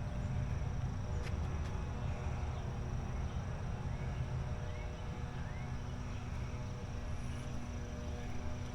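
Outdoor ambience on a walk: a steady thin high insect drone over a steady low rumble, with a few short rising chirps a little before the middle.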